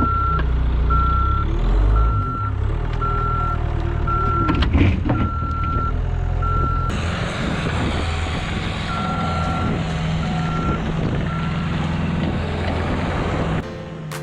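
Skid steer engine running with its backup alarm beeping steadily, about once a second, as it reverses. About halfway through a louder hiss joins the engine sound and the beeps turn fainter, then stop.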